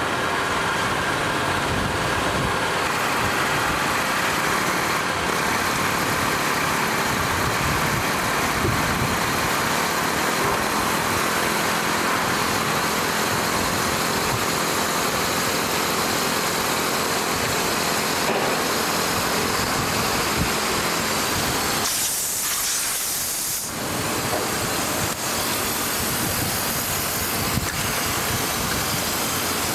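An engine running steadily. About 22 seconds in there is a short, loud hiss lasting a second or two.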